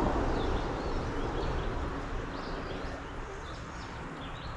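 Birds chirping, many short faint calls scattered through, over a steady outdoor hiss that eases off over the first couple of seconds.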